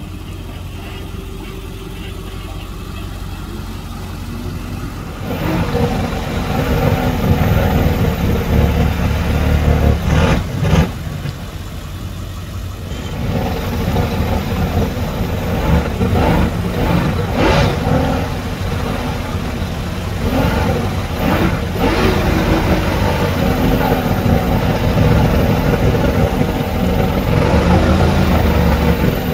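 Mercury outboard on an Allison hot-rod boat running in the water at the trailer, its revs rising and falling again and again and throwing up propeller spray. The engine is quieter for the first few seconds and gets louder about five seconds in.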